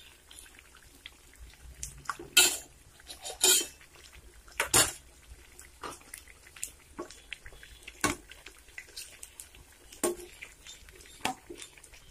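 A slotted steel spatula clinking and knocking against a stainless-steel kadai as egg bajjis frying in hot oil are turned: several irregular metal clinks, the loudest a little before the middle, over faint sizzling of the oil.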